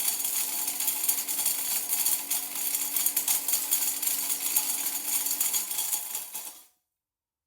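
Blender running with hard pieces clattering and rattling against the jar over a steady motor hum. The hum stops about five and a half seconds in and the rattling dies away a second later, then it cuts to silence.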